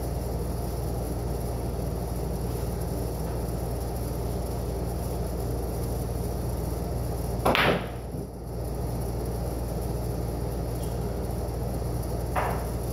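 Pool shot on a pool table: a sharp clack of cue and balls about seven and a half seconds in, and a softer knock near the end, over a steady low hum.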